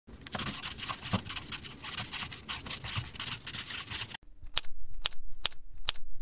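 Pen scratching across paper in quick repeated strokes, the sound effect of a line drawing being drawn. After about four seconds it stops abruptly, and four sharp clicks follow, about half a second apart.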